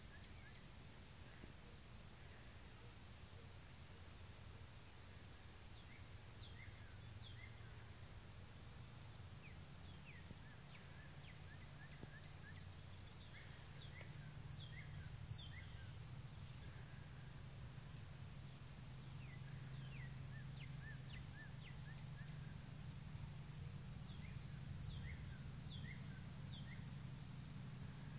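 Outdoor summer insect chorus: a steady, rapidly pulsing high-pitched trill runs throughout, with a second insect's buzz coming in stretches of a few seconds at a time. Short falling bird chirps come and go over it, with a faint low hum underneath.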